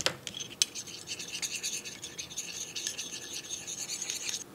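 A small metal spatula stirring liquid paint in a metal tin lid, scraping rapidly against the metal bottom. Two sharp clicks start it off, then the fast scratchy rubbing runs for about three seconds and stops suddenly near the end.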